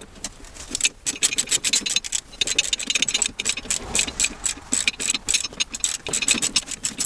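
Hand socket ratchet clicking fast in runs as bolts are worked loose, with a couple of short pauses between runs.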